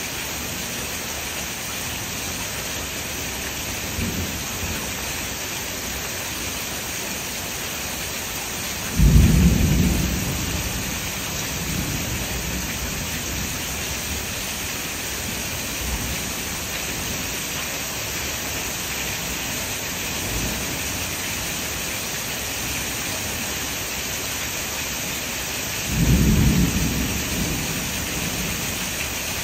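Steady rain falling during a thunderstorm, with two loud claps of thunder, about nine seconds in and again near the end, each rumbling away over a second or two. Fainter, more distant rumbles of thunder come in between.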